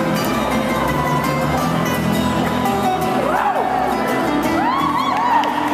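Live acoustic band music with an upright bass and a guitar, played steadily. Near the end, a few whistled glides rise and fall in pitch over the music.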